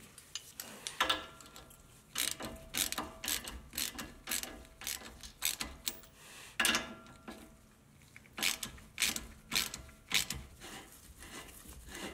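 A ratchet wrench clicking in short runs, with metallic clinks of a socket and tools, as the 15 mm adjuster clamp nuts on a Jeep drag link are loosened.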